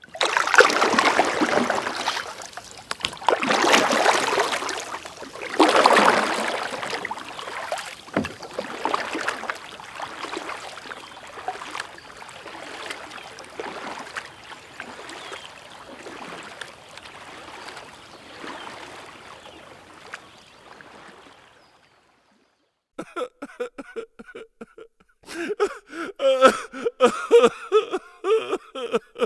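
Water rushing and splashing around a moving kayak, loudest in three surges in the first six seconds, then fading steadily until it stops about 22 seconds in. After a short silence, a choppy pitched sound, like a voice, starts up and runs on.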